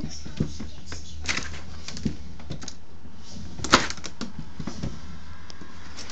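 A small ball being kicked and bouncing on a hard tile floor in play with a dog: scattered light knocks and taps, the sharpest a little past halfway, over a steady low hum.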